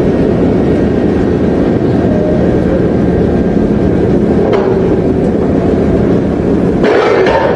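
A loud, steady mechanical rumble with a faint steady hum running through it, changing to a brighter, hissier sound near the end.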